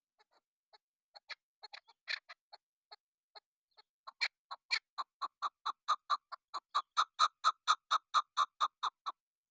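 Chukar partridge calling: a few scattered clucking notes, then from about four seconds in a fast, even run of clucks, about four or five a second, growing louder before stopping suddenly near the end.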